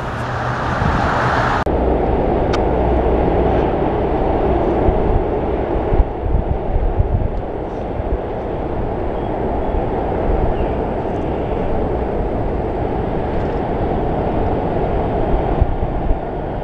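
Road traffic: cars driving past with a steady rumble of engines and tyres. The sound changes abruptly a little under two seconds in.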